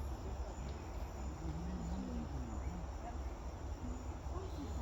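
Forest ambience: a steady insect chorus over a low rumble, with faint distant voices.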